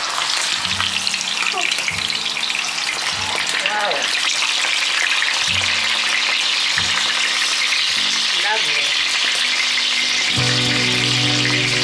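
Marinated milkfish frying in hot cooking oil in a covered pan on high flame: a dense, steady sizzle and crackle. Background music comes in near the end.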